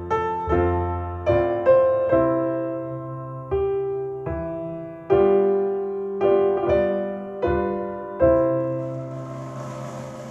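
Solo piano recording played back through Paradigm Persona 7F hi-fi loudspeakers: slow, unhurried chords over low bass notes, each struck and left to ring away.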